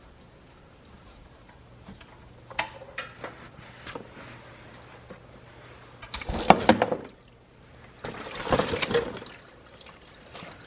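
A few sharp clicks and taps, then engine oil gushing out of the drain plug hole and splashing into a drain pan in two loud bursts, the first with the sharpest splashes.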